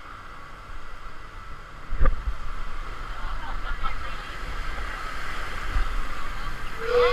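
Round river-rapids raft riding the water channel: steady rushing water with a low rumble, and a single sharp knock about two seconds in, after which the rumble grows louder.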